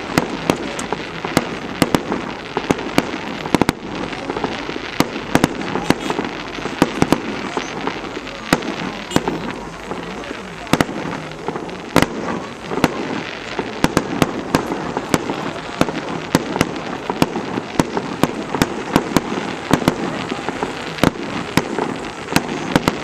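Aerial fireworks bursting in a rapid, irregular string of bangs and cracks, several a second, with the sound of voices in the background.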